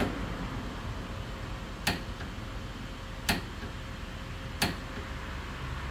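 Half-inch drive click-type torque wrench set at 55 foot-pounds clicking as it breaks over when pulled clockwise on a torque tester: a faint click at the start, then three sharp clicks about a second and a half apart, over a steady low hum.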